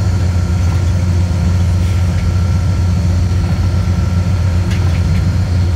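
Diesel locomotive engine running, heard from inside the cab as a loud, steady, deep drone.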